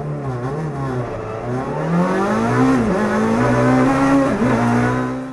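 Rally racing car engine heard from inside the cabin, revving hard as the car accelerates. Its pitch climbs and drops briefly twice at gear changes.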